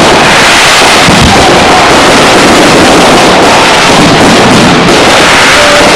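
Aerial fireworks display in a dense barrage: shells bursting and stars crackling almost without pause, loud enough to push the recording to its limit throughout.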